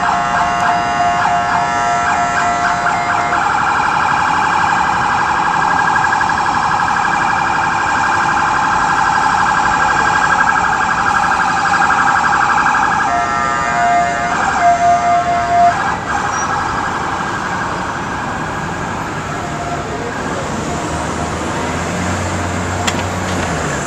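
Police car siren cycling through its tones. It starts with quick pulsing tones, switches after a few seconds to a fast continuous warble, breaks into short bursts about thirteen seconds in, then grows fainter. A low traffic rumble rises near the end.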